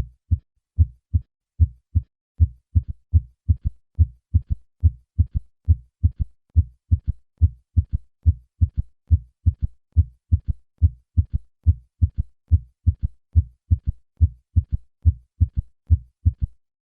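Recorded heart sounds through a stethoscope: a steady run of dull, low-pitched thumps, the first and second heart sounds followed in early diastole by a faint third heart sound, giving a triple (gallop) rhythm. This is the third heart sound of heart failure, as in dilated cardiomyopathy, ischemic or valvular heart disease.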